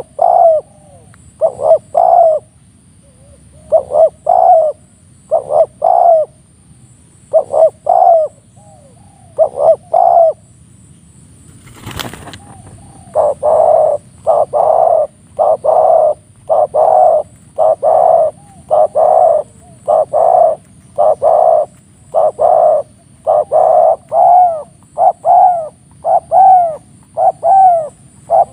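Spotted doves cooing. Short groups of coo notes come with pauses between them at first. A single sharp click sounds about twelve seconds in, then the coos follow quickly one after another with hardly a break.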